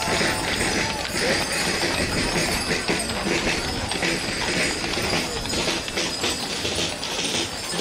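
Hooves of heavy draught horses clip-clopping on the road as they pull a barrel-laden brewery dray, with a crowd murmuring behind.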